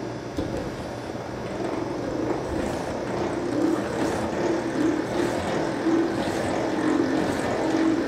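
Honey extractor spinning two frames of uncapped comb, getting louder over the first few seconds as it comes up to speed, then running fast with a steady hum.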